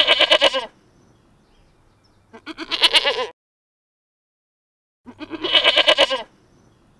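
Domestic goat bleating: three quavering bleats, one at the start, one about two and a half seconds in and one about five seconds in.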